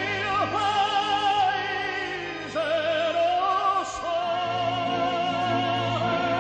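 Operatic-style singing: a solo voice holding several long notes with wide vibrato over instrumental accompaniment.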